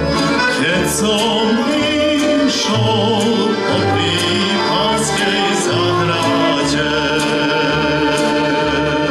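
Slovak folk song: a man singing with vibrato, accompanied by violin and accordions, with a regular bass pulse underneath.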